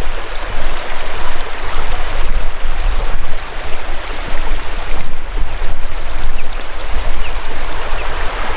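Shallow stream running over stones, a steady rushing noise with an uneven low rumble underneath.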